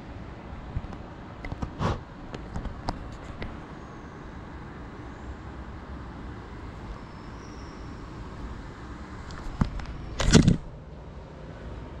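Knocks and rubbing of a small FPV drone being handled, over a steady low hum, with one loud thump about ten seconds in.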